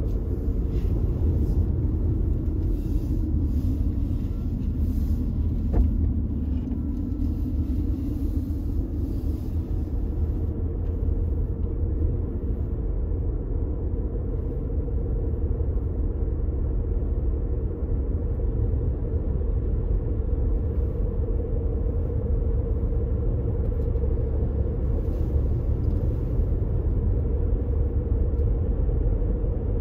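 A car driving on a country road: steady engine and tyre rumble with a constant hum, the pitch of the running sinking slightly and coming back up in the first ten seconds. A single short click about six seconds in.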